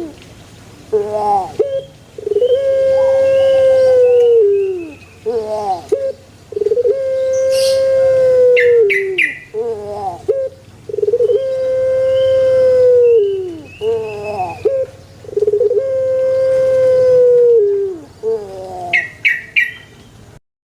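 Puter pelung turtle dove cooing: four long, drawn-out coos, each held on one note for about two seconds and then falling, led in by a few short stuttering notes. Short high chirps come in twice, midway and near the end, and the sound cuts off suddenly just before the end.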